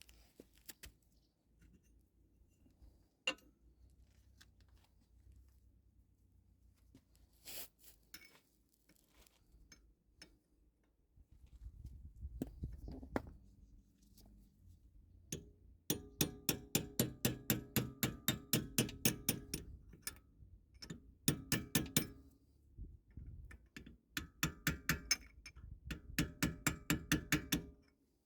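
Scattered clanks of tools on metal, then several runs of sharp, ringing metal-on-metal blows at about three to four a second, like a hammer striking the front hub and brake assembly of a BMW E36 during removal of a worn wheel bearing.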